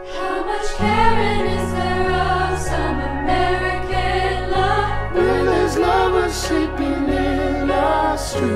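Music: layered singing voices over a deep bass line that comes in about a second in and steps down note by note.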